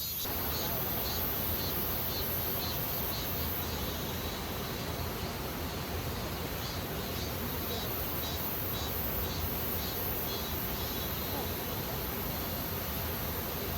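Insects chirping in short, regular pulses, about two a second, over a steady rushing noise.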